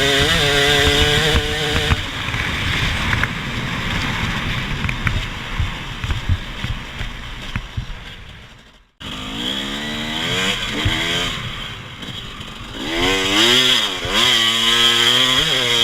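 Small off-road engine on a trail ride, its pitch rising and falling with the throttle, then easing off and fading. The sound cuts out abruptly about nine seconds in and picks up again with the engine revving up and down, loudest near the end.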